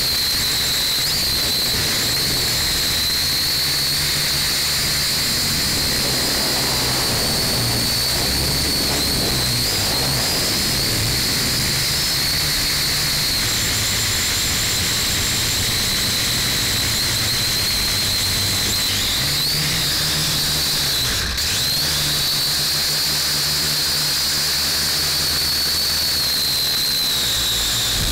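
Small quadcopter drone's electric motors and propellers whining steadily at a high pitch, heard through the drone's own onboard camera. The pitch wavers slightly now and then, and there is one brief break about two-thirds of the way through.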